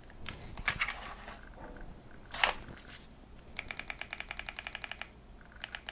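A camera's control dial being turned to adjust the ISO: a few separate handling clicks, one louder click about halfway through, then a fast, even run of small detent clicks, about fourteen a second, for over a second.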